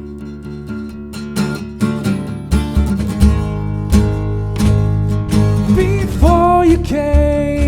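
Live semi-acoustic rock band playing: strummed acoustic guitar chords, with deep bass notes joining about two and a half seconds in and a voice starting to sing near the end.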